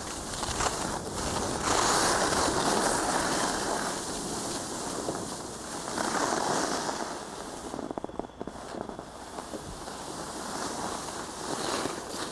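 Rushing, scraping noise of skiing downhill: skis sliding on hard snow, with wind on the camcorder microphone. The rush swells and fades several times, loudest about two seconds in, again around six seconds and near the end.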